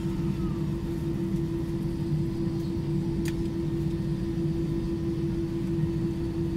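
Airbus A320 cabin noise while taxiing: the engines idle as a steady hum with a constant low tone over a rumble. There is a single brief click about three seconds in.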